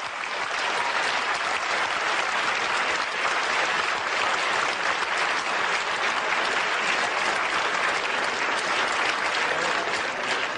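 Large audience applauding, a dense, steady ovation of many hands clapping.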